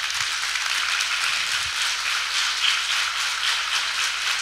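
Audience applauding steadily: many hands clapping.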